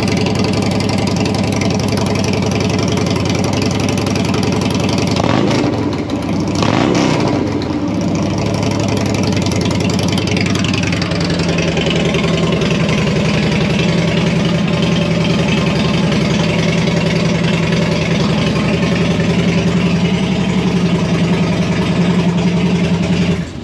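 Harley-Davidson Twin Cam 103 V-twin running through a Two Brothers Racing 2-into-1 exhaust. It is revved up and down a few times about five to eight seconds in, then holds a steady idle that runs high because the engine is cold, and it shuts off right at the end.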